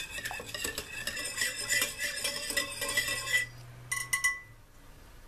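A wire whisk stirring a thin liquid of yeast and warm water in a ceramic bowl, its wires clinking rapidly against the bowl's sides. The whisking stops about three and a half seconds in, followed by a few light taps around four seconds.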